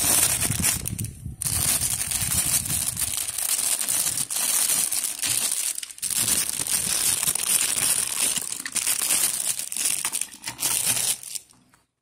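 Clear plastic packaging crinkling as an optical-bay HDD/SSD caddy is pulled out of its bag by hand, in several spells with short breaks, stopping shortly before the end.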